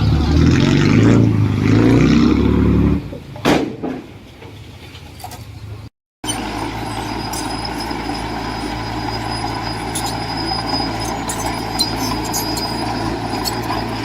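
Heavy diesel engine of earthmoving machinery working under load for about three seconds, with a sharp knock soon after. After a brief break, a steady diesel engine drone runs on with scattered clicks and clanks.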